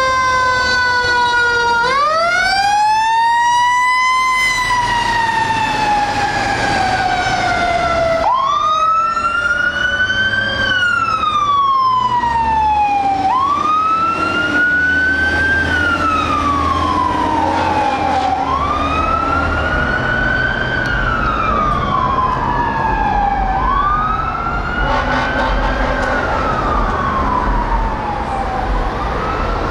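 Fire truck siren wailing in long cycles, each rising quickly and falling slowly over about five seconds. Underneath, the low rumble of a heavy fire truck's engine grows louder around the middle as a ladder truck drives past.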